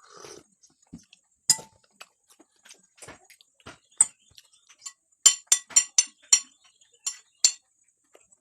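Cutlery clinking against a plate while eating: scattered sharp clinks, with a quick run of about six in the middle.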